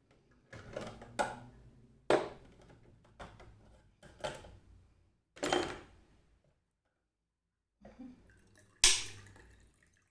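Kitchenware being handled: about eight separate knocks and clinks, each dying away quickly, the loudest near the end.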